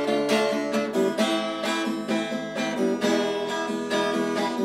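Acoustic guitar strummed in a steady rhythm of chords, played alone without singing.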